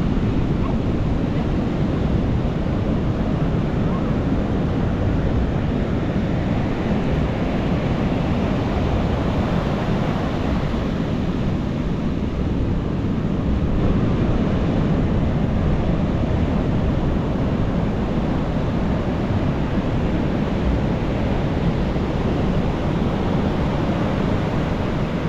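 Ocean surf breaking on a beach: a continuous heavy rush of waves, strongest in the low range, swelling slightly about halfway through.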